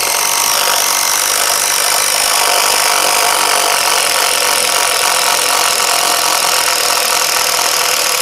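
DeWalt cordless impact driver hammering without a break as it drives a long screw deep into stacked timber blocks under heavy load.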